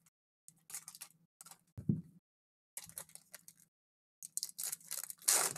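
Foil trading-card pack wrappers crinkling and tearing as packs are opened by hand, in short bursts, with a low thump about two seconds in.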